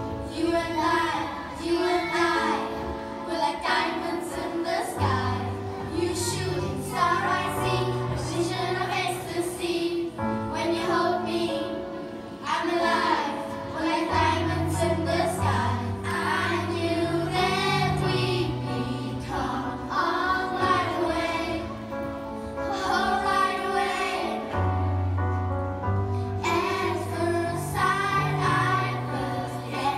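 A group of children singing a song over amplified accompaniment, with a bass line that comes in about five seconds in.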